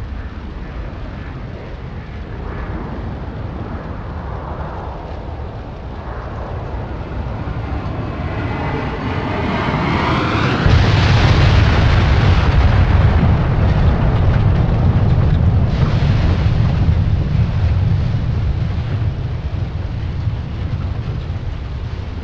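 A Boeing 747 crashing and exploding. Over a steady background rumble, a rushing noise builds and rises, then about eleven seconds in a deep explosion rumble breaks out suddenly and rolls on for several seconds before slowly fading.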